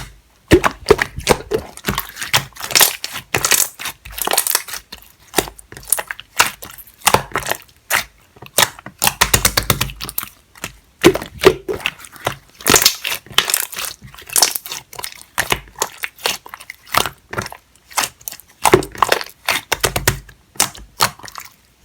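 Jelly-textured slime being squished, stretched and folded by hand, giving dense runs of sticky pops, clicks and crackles in irregular bursts, with a few duller presses now and then.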